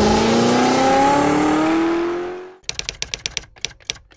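A car engine revving up, its pitch rising steadily, fades out about two and a half seconds in. A quick run of typewriter key clacks follows, several a second.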